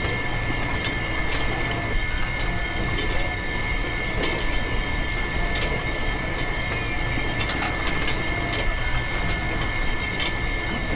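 A small electric motor running with a steady high-pitched whine, with liquid trickling and dripping into a small metal bucket and scattered light clicks.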